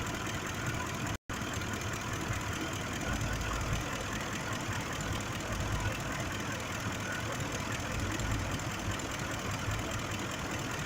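The 5.4-litre V8 of a 2005 Ford F-150 running at a steady idle with a misfire on cylinder 2, which the mechanic blames on a failing fuel injector. A split-second dropout in the sound comes about a second in.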